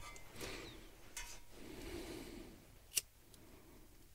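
Faint handling sounds while soaked birch-bark tinder is being lit: a few short scrapes in the first second and a half, then one sharp click about three seconds in.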